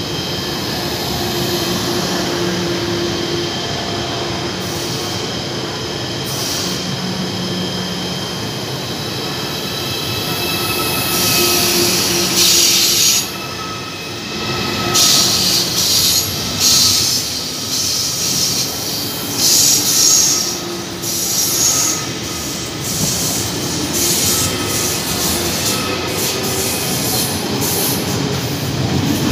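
Deutsche Bahn ICE 4 high-speed train rolling slowly past at close range, with a steady electric hum; from about eleven seconds in, repeated high-pitched wheel squeals come and go and the sound grows louder.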